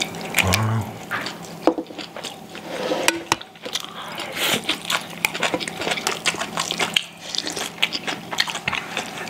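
Close-up eating sounds: chewing on Korean pancakes, rice and side dishes, with many short clicks of chopsticks and metal spoons against bowls and plates.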